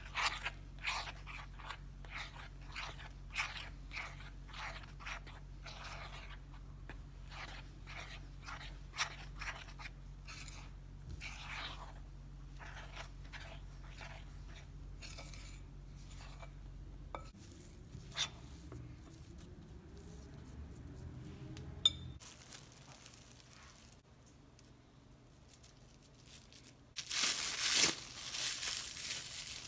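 A spoon working flour and butter into a stiff dough in a glass bowl, in rhythmic crunchy scrapes about two a second. Near the end, plastic cling wrap crinkles loudly as it is gathered around the ball of dough.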